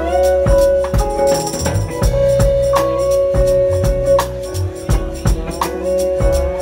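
Live R&B band playing: drums keep a steady beat under a long held note and a moving bass line.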